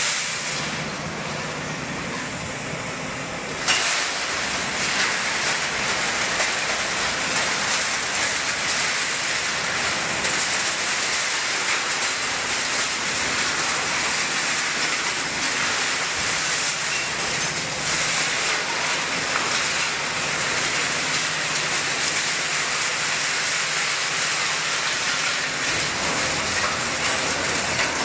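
Tangled steel rebar and iron scrap clattering and scraping in a CAT 352 excavator's sorting grapple and dropping into a steel container. The clatter runs continuously over the excavator's diesel engine, with one sharp clang about four seconds in.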